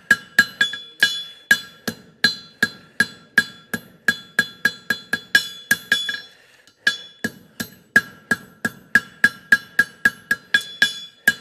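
Hammer blows on an anvil, drawing out a jar calk from the heel of a hot steel horseshoe. The strikes are steady and ringing, about two to three a second, with a brief pause a little past the middle.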